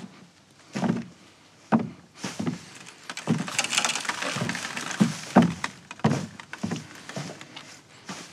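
Footsteps thudding on wooden boards overhead, about one step a second, with some scuffing in the middle.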